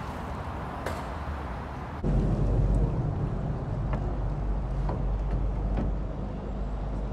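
Steady low rumble and hiss of highway traffic on the QEW bridge overhead, heard from the water beneath it, with a few faint knocks. The rumble jumps louder and deeper about two seconds in.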